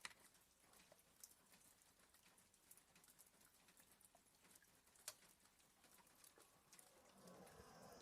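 Near silence, with light scattered ticks of raindrops tapping on a window pane and two sharper taps, one right at the start and one about five seconds in.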